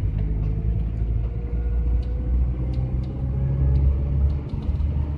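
GAZelle van heard from inside the cab while driving: a steady low engine and road rumble, with a faint engine note creeping slowly up in pitch, and occasional light clicks.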